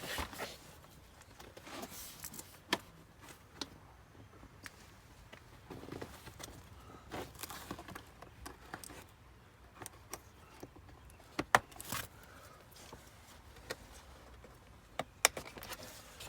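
Scattered light clicks and handling rustles of plastic door-panel retaining clips being fitted, with a few sharper clicks in the second half.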